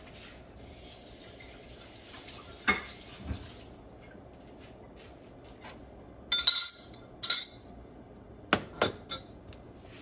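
Metal kitchen utensils clinking and knocking against cookware: a couple of soft knocks a few seconds in, then a series of sharp clinks in the second half, over a soft hiss at the start.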